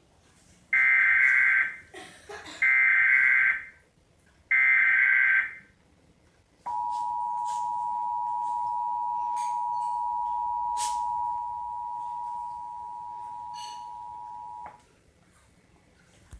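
Emergency Alert System header: three roughly one-second bursts of buzzy SAME data tones, then the EAS two-tone attention signal, two steady tones just under 1 kHz held for about eight seconds, that opens a broadcast emergency alert or test. The two-tone signal drops in level twice before it cuts off.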